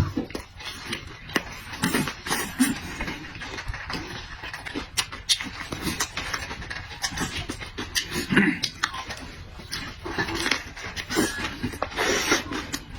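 Close-miked eating noises: a man chewing and smacking his lips, with many irregular wet clicks and an occasional short grunt or slurp.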